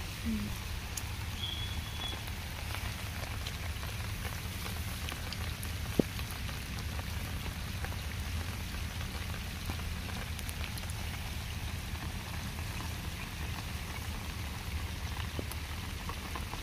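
Steady rain falling, an even hiss with no let-up, with a single sharp click about six seconds in.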